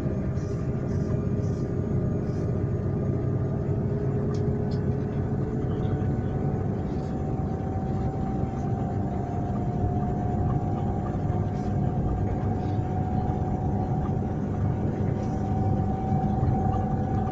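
Passenger train running steadily: a continuous low rumble with faint humming tones that drift slowly in pitch.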